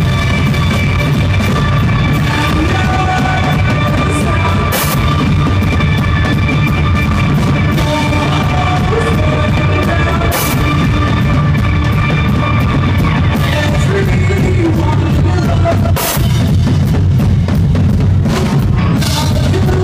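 Live rock band playing loudly, a drum kit close up with electric guitar, and cymbal crashes every few seconds.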